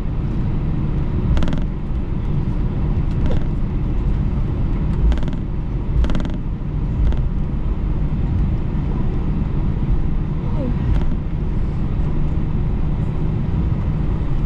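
Cabin noise of an Airbus A321 taxiing after landing: a steady low rumble of engines and airflow, with a few short knocks as the aircraft rolls.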